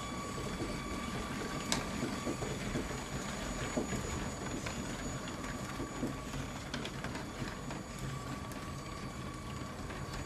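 Lego toy train running along plastic track: its electric motor gives a thin steady whine while the plastic wheels and loaded wagons rattle, with a few sharp clicks as they pass over the track joints.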